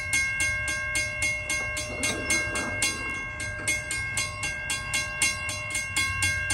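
Railroad crossing bell ringing steadily, about four strokes a second, while the crossing is activated. About two seconds in there is a brief rougher sound as the stuck-down gate arm is raised by hand.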